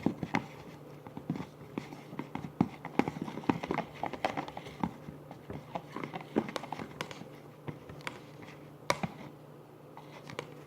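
Fork stirring glue and food colouring in a bowl: irregular clicks and taps of the fork against the bowl, thinning out near the end.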